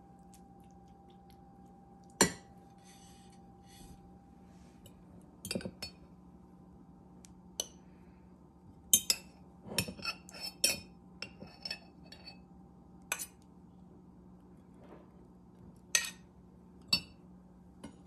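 Metal serving spoons clinking against a ceramic plate, a glass bowl and a glass jar as food is dished out: scattered sharp clinks, busiest around ten seconds in. A faint steady hum runs underneath.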